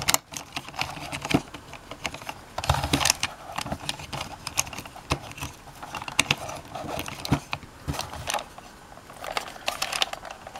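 Hard plastic toy parts clicking, tapping and rattling as an action figure is pushed into the opened gun turret of a Kenner Side Gunner toy vehicle and the toy is turned in the hands. Irregular short clicks, some in quick clusters.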